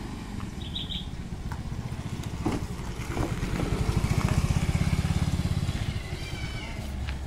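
A small automatic motor scooter's engine running as it rides past close by, getting louder for a few seconds and then fading as it moves off.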